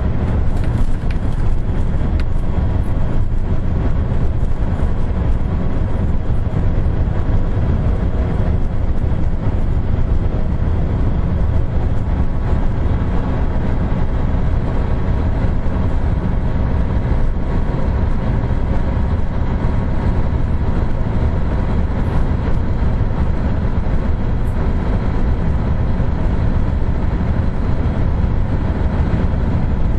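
Cab interior of a 2009 Kenworth T800 semi truck cruising on the highway: the heavy diesel engine drones steadily under a low rumble of tyre and road noise.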